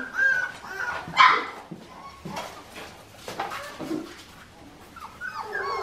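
Four-week-old Australian Shepherd puppies whining and yipping in short, repeated high calls, with one louder yip about a second in. The calls fade to a quiet stretch with a few light clicks in the middle, and the whining starts up again near the end.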